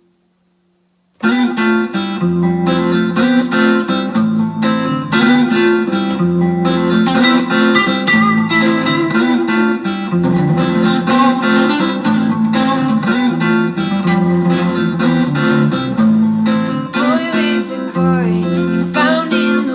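Solo guitar playing a riff that starts about a second in, with plucked picked notes over repeating bass notes and a few bent notes near the end.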